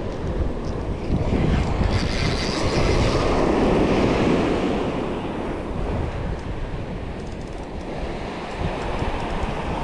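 Gulf surf washing onto the beach, with wind buffeting the microphone; the wash swells louder about four seconds in.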